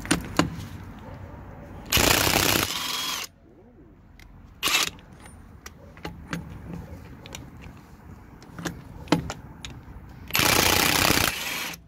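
Parkside PASSP 20 Li A1 cordless impact wrench hammering on rusted wheel nuts in two bursts of just over a second each, one about two seconds in and one near the end, loosening the seized nuts. Faint handling clicks come between the bursts.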